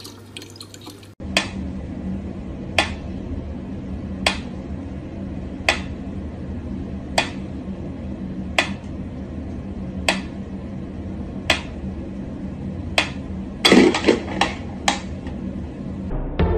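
Mechanical pyramid metronome ticking slowly, about one sharp tick every second and a half. Near the end a quick cluster of louder knocks and clicks breaks the steady beat.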